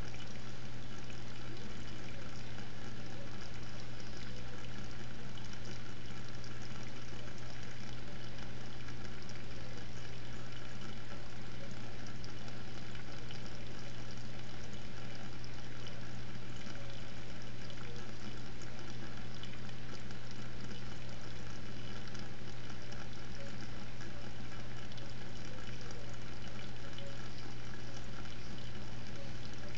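Steady water noise of a reef aquarium's circulation, with a constant low hum running underneath.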